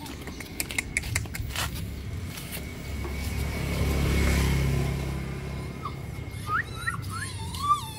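A motor vehicle going past, its low engine sound swelling to a peak about halfway through and then fading. A few sharp clicks come before it, and several short, high, quickly rising chirps near the end.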